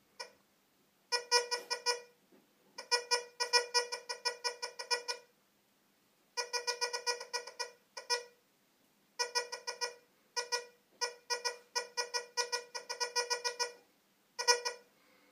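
Tesoro Tejon metal detector's audio signal sounding in several bursts of fast, stuttering beeps on a buzzy mid-pitched tone as a speck of tin foil is passed over the search coil: the detector responding to a tiny target.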